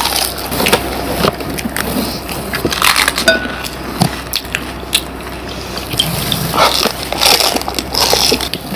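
Crisp fuchka (pani puri) shells crunching as they are cracked open with the fingers and chewed: a run of irregular crunches and crackles, heard close up.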